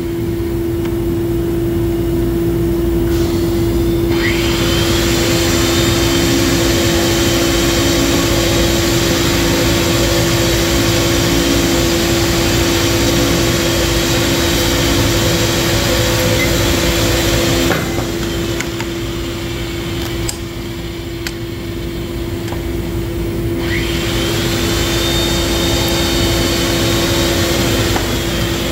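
RIDGID 500 power pipe-threading machine: the motor starts with a rising whine about four seconds in and runs while a thread is cut on the pipe. It shuts off after about fourteen seconds, then starts again about five seconds later while the pipe end is reamed. Under it runs a steady hum from the boiler and other equipment.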